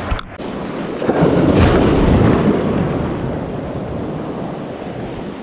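Small surf washing up the beach, swelling about a second in and slowly fading, with wind on the microphone. A brief knock at the very start.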